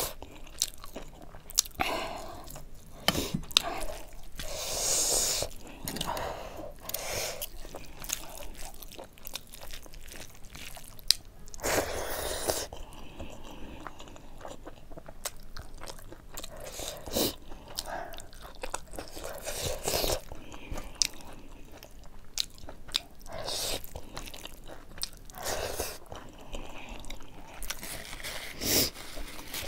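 Close-miked chewing of a mouthful of rice and buffalo meat curry, with irregular wet mouth clicks and smacks, and fingers mixing rice on a steel plate.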